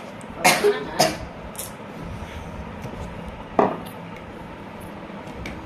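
Handling noise: three quick knocks and clicks in the first second, then one more about three and a half seconds in, over a steady low hum.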